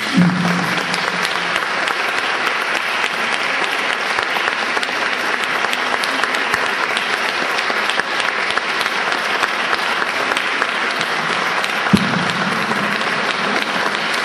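Audience applauding: a long, steady round of clapping, with a single thump about twelve seconds in.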